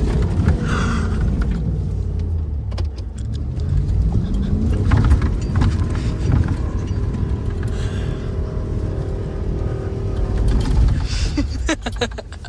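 A motor vehicle engine running with a heavy low rumble. Its pitch rises about four seconds in, as if the engine revs up.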